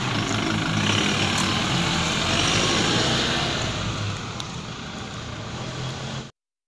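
Toyota Innova's four-cylinder turbodiesel engine running as the car pulls away across the lot, the sound fading as it moves off. It cuts off abruptly about six seconds in.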